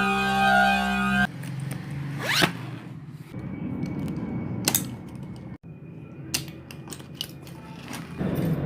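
Background music that cuts off after about a second, then a makeup kit case being opened: a quick zip about two seconds in, followed by several sharp clicks and rattles as the case and its contents are handled.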